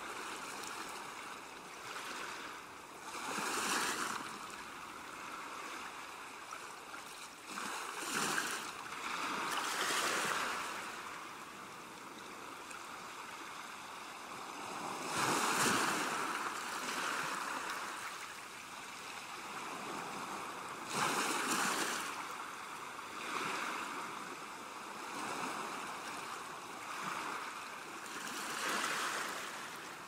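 Sea surf washing up a beach: a steady hiss of water that swells and falls away every few seconds as each wave comes in, with the loudest surges about halfway through and again a few seconds later.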